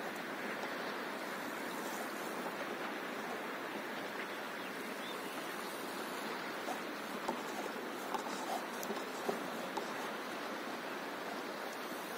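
Calm sea water lapping against a paddleboard, a steady wash with a few small clicks and slaps in the second half.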